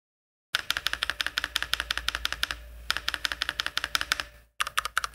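Rapid typing on an IQUNIX F96 96% mechanical keyboard with Cherry MX Red switches: quick runs of crisp key clicks with two short pauses.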